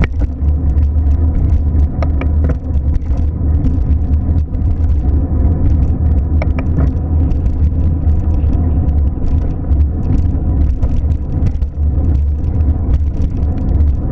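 Steady low rumble of a car running, with a faint steady tone above it and a couple of faint ticks about two and six and a half seconds in.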